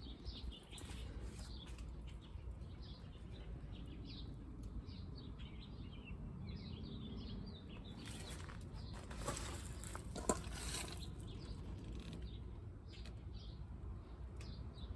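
Songbirds chirping throughout, a steady run of short, quick falling chirps, over a low background rumble. Around the middle come a few brief hissing bursts.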